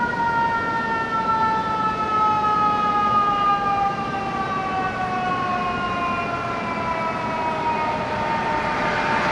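Fire engine's mechanical siren winding down: one long wail, with several overtones, that slowly and steadily falls in pitch after a quick wind-up.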